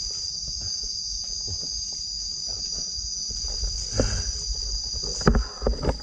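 Insects chirring in a steady high-pitched drone, with a few thumps and rustles near the end.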